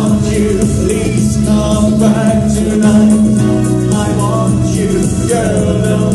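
Live band performing a song: a man singing into a microphone, with held notes that bend in pitch, over electric keyboard accompaniment with cymbals.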